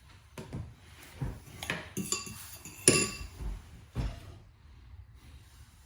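Metal kitchen utensils and cookware clinking and knocking: several separate clanks, two of them with a short metallic ring, dying away about four seconds in.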